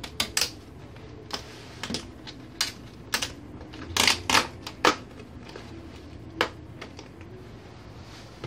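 Irregular sharp clicks and knocks of hard plastic and metal parts being handled while a flat-screen TV is taken apart, with a cluster of louder knocks about four to five seconds in.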